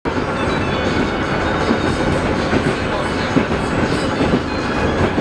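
Moscow metro carriage running along the tunnel, heard from inside the car: a loud, steady rumble and rattle of the train that does not let up.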